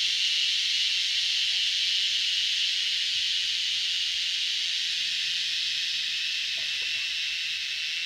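Forest insect chorus: a steady, high hissing drone that eases slightly toward the end.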